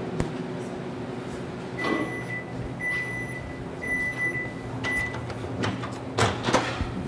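Microwave oven beeping four times, about a second apart, at the end of its heating cycle, over a low steady hum. Near the end come a few sharp kitchen clatters, louder than the beeps.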